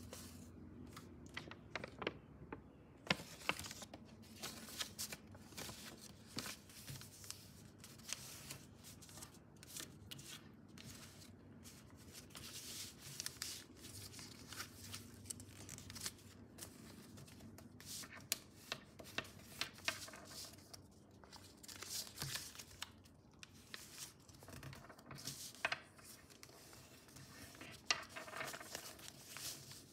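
A sheet of paper being folded and creased by hand against a table: irregular crinkling rustles and short, sharp crackles as the folds are pressed flat.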